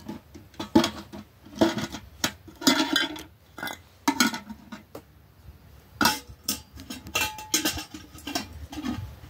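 Dishes and pots clattering as they are handled: irregular knocks and clinks with a short ring after some, with a lull about halfway through.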